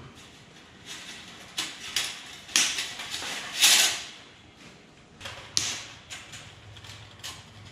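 Pliers clicking and scraping against the metal frame and terminals of an electric furnace heating-element rack: a few scattered sharp clicks, with a longer scrape about halfway through.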